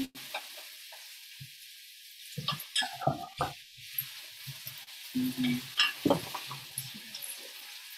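Cabbage and shimeji frying in garlic oil in a frying pan: a steady soft sizzle, with scattered clicks and scrapes of a utensil against the pan as the food is stirred, a cluster of them a few seconds in.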